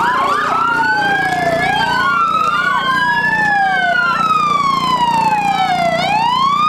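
Two emergency-vehicle sirens wailing, their slow rising and falling tones overlapping out of step with each other.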